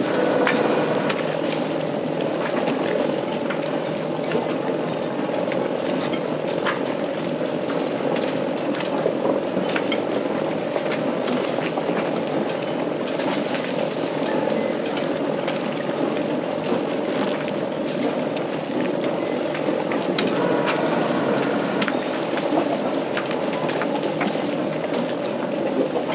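A sailboat's engine idling steadily at the berth before casting off, with scattered light clicks and knocks from line handling on deck.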